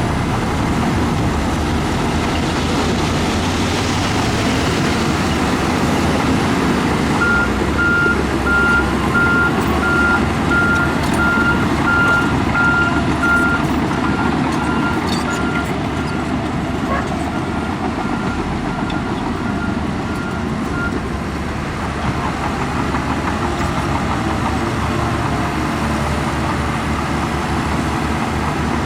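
Heavy diesel earthmoving machines running steadily. A reversing alarm starts beeping about seven seconds in, grows fainter, and stops after about fourteen seconds.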